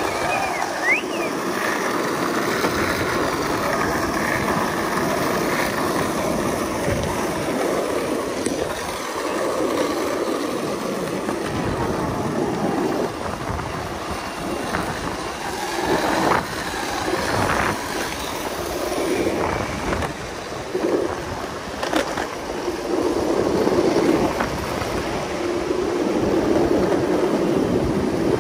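Wind rushing over a phone microphone and longboard wheels rolling on street pavement, a steady noise broken by a few sharp knocks in the second half.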